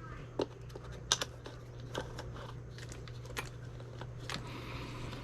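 Scattered sharp clicks and light knocks of hand tools and plastic parts being handled while working on a 1/7-scale RC truck, over a steady low hum.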